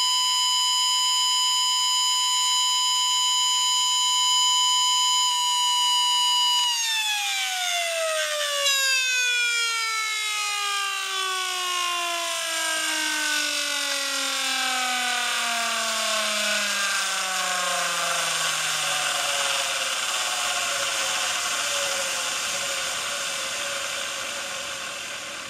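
Pulse motor, a magnet rotor driven by a bifilar stacked pancake coil, running at about 60,000 rpm with a steady high-pitched whine. About seven seconds in the pitch starts falling smoothly as the rotor spins down. The tone sinks out of hearing by about twenty seconds, leaving a hiss that fades near the end.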